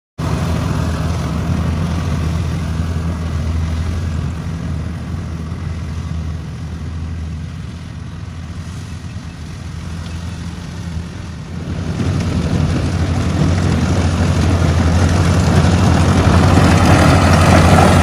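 Rice combine harvester running steadily as it cuts and threshes, a low engine hum under the rattle of its machinery. About two-thirds of the way through it becomes louder and brighter as a machine is heard closer.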